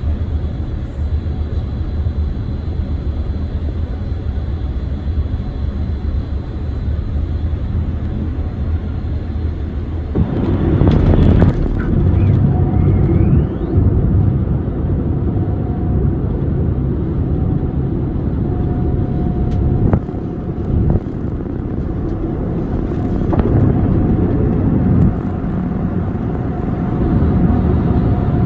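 Steady cabin noise inside a Boeing 747-400 on its approach. About ten seconds in, the landing gear comes down and the rumble and rush of air turn suddenly louder and stay that way.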